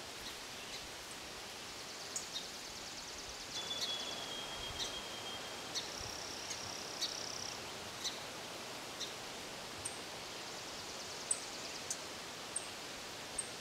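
Songbirds calling over a faint, steady outdoor hiss: scattered short high chirps, a couple of fast trills, and two held high notes a few seconds in.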